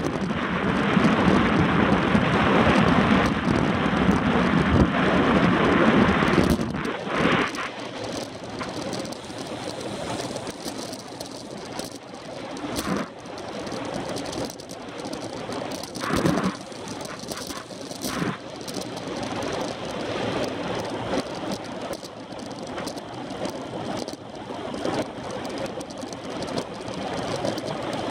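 Wind buffeting the microphone of a handlebar-mounted camera on a road bike at racing speed, loud for the first six seconds or so. After that it drops to quieter riding noise with scattered clicks and knocks.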